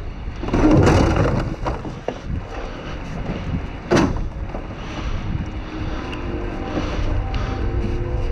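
Wind buffeting the microphone with a steady low rumble, over rustling and clattering of dumpster debris being shifted, and a single sharp knock about four seconds in.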